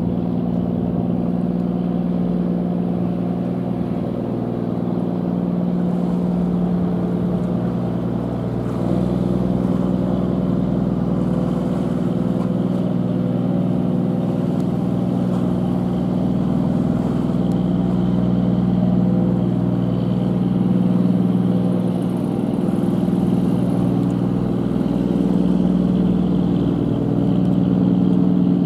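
Diesel engine of a mid-sized towing tug running under way, a steady low drone with several engine tones stacked together, growing a little louder about a third of the way in and again near the end as it accelerates.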